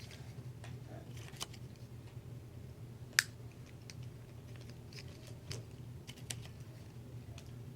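Cut pieces of plastic drinking straw being pushed onto a stainless steel wire, with small irregular clicks and rustles and one sharp click about three seconds in, over a steady low hum.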